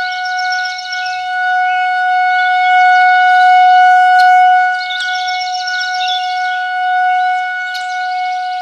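Synthesized imitation of a Federal Signal 2001-130 outdoor warning siren holding one steady tone during a siren test. It swells and fades slowly in loudness, with birds chirping over it a few times.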